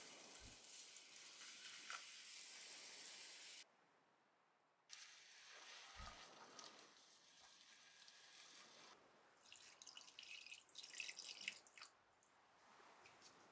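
Warm milk pouring into hot roux in a nonstick frying pan: a steady hissing pour, broken by a short quiet gap about four seconds in. Then a silicone whisk stirs and scrapes through the lumpy milk-and-roux mixture, with irregular scratchy clicks over the last few seconds.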